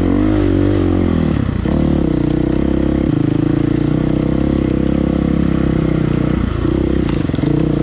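Dirt bike engine running under way on a trail, its note rising and falling with the throttle and stepping to new pitches several times as the rider works the gears.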